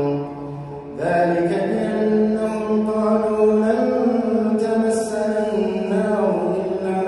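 A man chanting Quran verses in melodic tajweed recitation, drawing out long held notes that glide slowly in pitch. A short pause for breath comes about a second in, then a new phrase begins.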